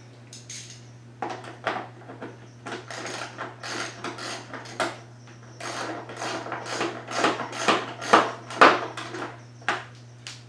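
Hand tools and plastic parts being worked: irregular clicks, knocks and short scrapes of a socket ratchet and the number plate being handled and bolted onto a dirt bike, over a steady low hum.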